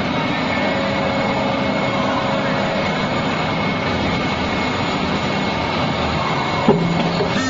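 Injection moulding machine running with a loud, steady mechanical hum and a faint high whine, while the two-colour flip-top cap mould opens; a single sharp clunk comes near the end.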